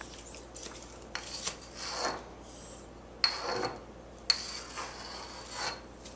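Chalk scratching across a blackboard in four separate strokes, the longest about a second and a half, some with a thin high squeal.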